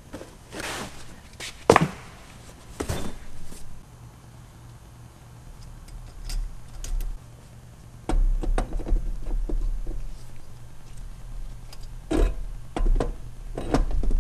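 Parts being handled by hand: rustles and knocks, with one sharp knock about two seconds in, then clunks and bumps from about eight seconds in as the intake manifold is handled and fitted.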